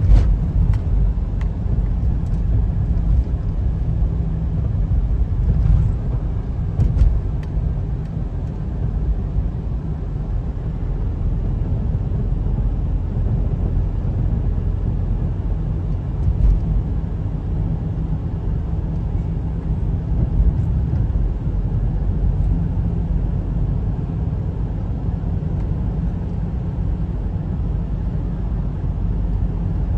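Steady low rumble of a car's engine and tyres while driving along a road, with a few faint clicks in the first several seconds.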